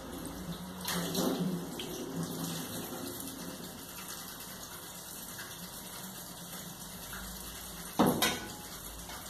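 Kitchen tap running a steady stream into a stainless-steel sink, splashing louder about a second in as a filter part is rinsed under it. A single sharp knock near the end.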